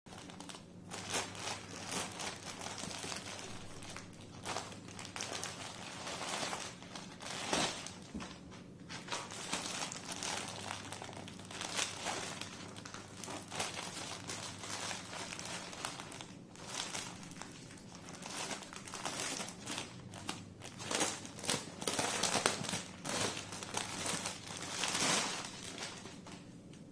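Plastic courier pouch and the saree's clear plastic wrapping crinkling and rustling in irregular bursts as they are cut open with scissors and handled.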